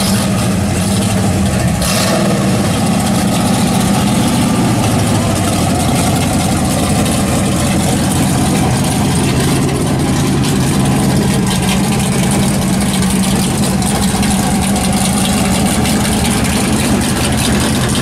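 Dodge super stock drag car's V8 idling steadily.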